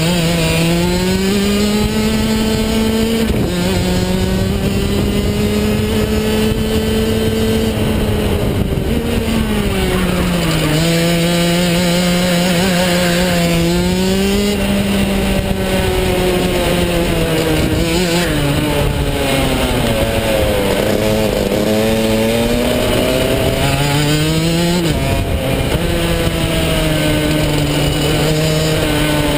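Onboard sound of a DD2 shifter kart's 125 cc two-stroke engine running hard through a lap, its note rising on the straights and falling into the corners, with several abrupt steps in pitch.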